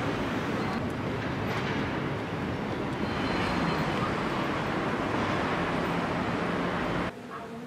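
Steady city traffic noise, an even rumble with no single event standing out, cutting off suddenly about seven seconds in.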